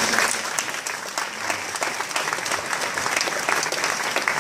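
An audience clapping: steady applause from a seated crowd.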